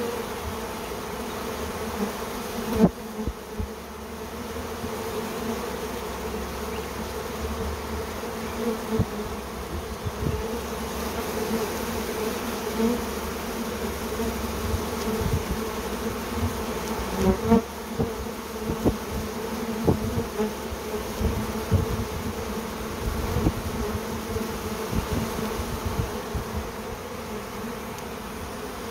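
Dense buzzing of a honeybee swarm pouring out of its wooden hive as the colony leaves with the old queen: a steady, loud hum, with a few short taps now and then.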